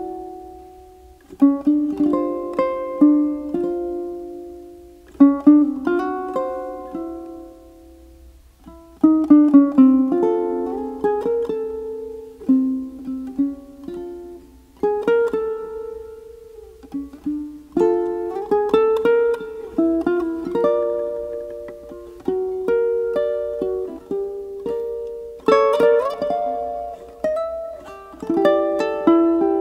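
Background music played on a plucked-string instrument: strummed chords and single notes that ring and fade, with brief lulls near the start and about eight seconds in.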